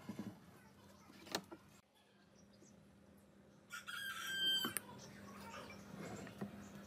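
A rooster crowing once, a call about a second long near the middle. Before it come a couple of light knocks of wooden pieces being set down on the workbench.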